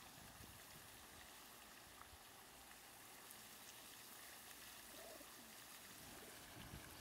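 Faint, steady splash of a pond fountain's water jet.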